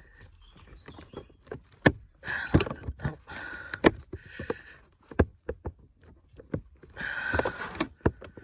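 Plastic cabin air filter cover being worked and clipped back into place behind a car's glove box: a run of sharp clicks and knocks, with plastic rubbing and scraping about two seconds in and again near the end.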